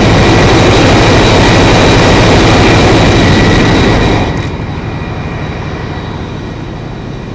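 Running Wärtsilä 18V46 V18 medium-speed diesel generator engines: a loud, steady roar with faint steady high whines, dropping sharply to a lower level about four seconds in.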